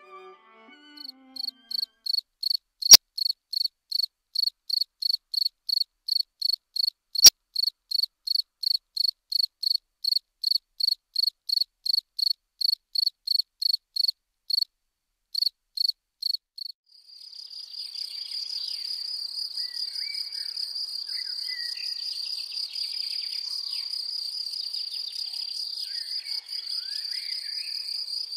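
Crickets chirping: a run of evenly spaced high chirps, about three a second, broken by two sharp clicks a few seconds apart near the start. From about halfway on, the chirps give way to a continuous high trill.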